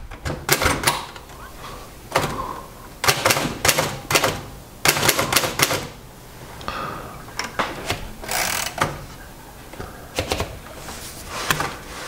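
A 1938 Royal DeLuxe manual portable typewriter being typed on: keys struck one at a time, the typebars clacking against the platen in short runs with pauses between.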